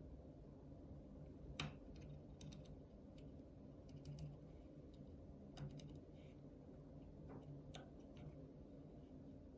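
Faint, scattered clicks of a pick working the wafers of a Ford HU101 ten-wafer car lock, the sharpest about one and a half seconds in, over a low steady hum.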